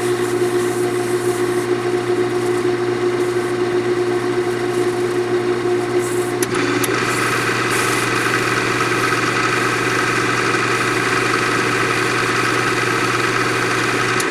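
Wood lathe motor running at speed with the turned lidded pot spinning in its chuck while friction polish is applied with a paper towel. It makes a steady hum with a whine, and the tone shifts about halfway through. The motor is switched off at the very end.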